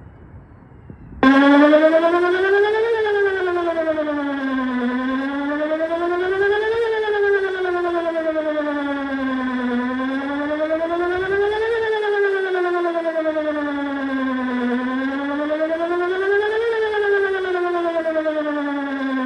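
Outdoor warning siren starting up suddenly about a second in and sounding a wail tone, its pitch rising and falling slowly with a peak about every four to five seconds, during a test of the emergency warning system.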